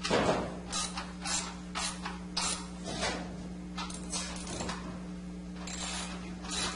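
Socket ratchet clicking in short, quick strokes, about two a second in three runs with brief pauses, as it tightens the bolts of a wooden pool table frame.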